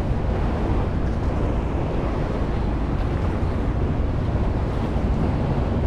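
Wind buffeting the microphone on a moving ferry, over a steady low rumble from the boat's engine and water rushing along the hull.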